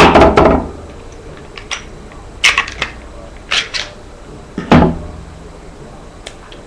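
Glock 22 pistol being field-stripped at speed: a series of sharp plastic-and-metal clicks and clacks as the magazine comes out, the slide is pulled back and slid off the frame, and the recoil spring and barrel are taken out. The loudest clacks come at the very start and about five seconds in.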